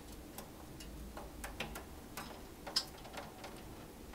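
A Derbyan parakeet making a few soft, irregular clicks, the sharpest near the end.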